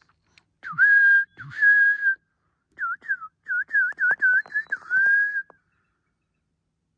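A man whistling by mouth: two long held notes, then a quick run of short warbling notes that stops about five and a half seconds in. The whistle is a bit shaky, his lips still numb from dental work.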